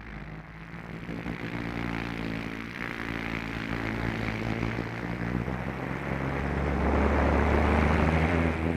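Car engine running steadily, its pitch shifting about three seconds in, growing louder toward the end.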